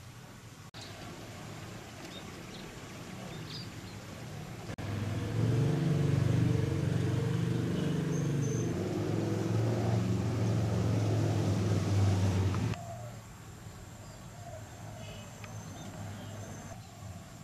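A motor engine running close by with a low, steady hum, starting suddenly about five seconds in and cutting off abruptly about eight seconds later; fainter background noise before and after.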